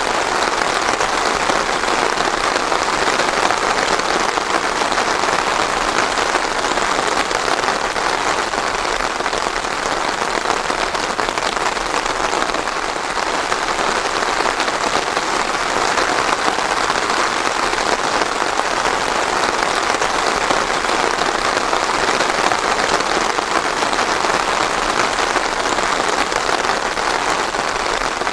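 Steady heavy rain falling and pattering on a surface, an even hiss with no thunder.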